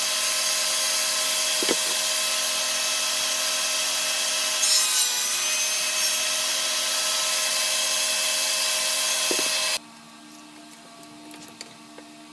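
Electric power tool running steadily on wood, its motor whine over a rough rasping noise, then switched off and cutting out abruptly a little under ten seconds in, leaving a quiet room with a few small clicks.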